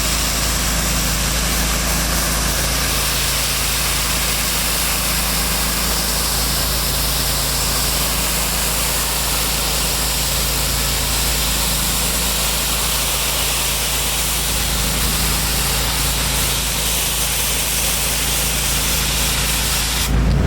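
A 30 hp air-cooled Kohler engine on a Hydro Tek hot water pressure washer running steadily, with a continuous hiss of high-pressure water spray.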